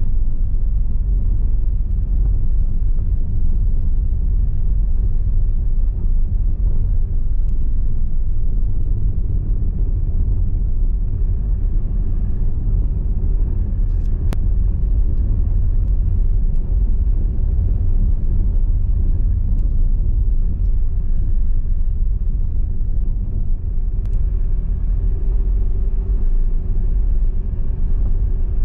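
Steady low rumble of wind buffeting a handheld camera's microphone as it is walked along a cobbled street, with a single sharp click about halfway through.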